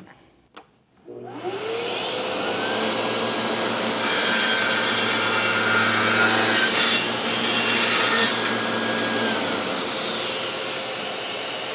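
Festool CSC SYS 50 cordless table saw spinning up, then cutting through a board on a compound miter cut with the blade tilted to 45 degrees for about four seconds, then winding down. A steady hiss carries on after the blade slows.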